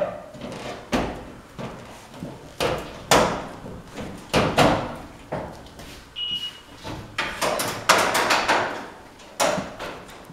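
Sheet-metal hood panels of a 1940 Packard 120 being handled and lowered: a string of sharp metal knocks and clanks with scraping between them, and a short squeak about six seconds in.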